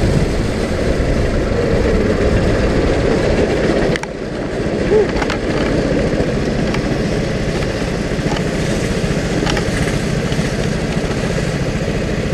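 Rental go-kart's small engine running, heard from the kart itself, dropping in level about four seconds in as the kart comes off the track and rolls slowly down the pit lane.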